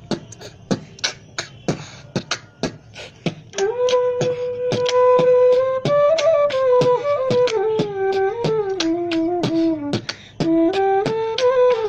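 Electronic outro music: a beat of sharp percussive hits, joined about three and a half seconds in by a sustained flute-like lead melody that steps slowly downward, drops out briefly near the end and comes back.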